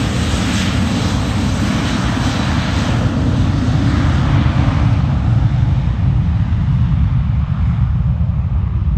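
Twin jet engines of an Airbus A320-family airliner at full takeoff thrust during the takeoff roll: a loud, steady rumble. Its hiss fades from about three seconds in as the aircraft moves away down the runway.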